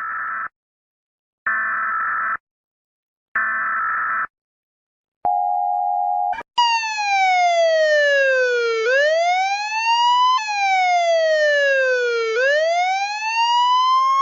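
Electronic emergency alert system alarm: three short chord-like beeps about two seconds apart and a brief steady tone, then a synthesized siren that slowly falls in pitch and swoops quickly back up, twice.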